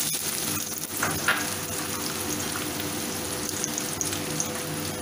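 Chopped onions sizzling steadily in hot refined oil in an aluminium kadhai.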